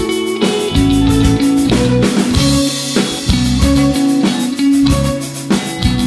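Rock band music: electric guitars played over bass and a drum kit.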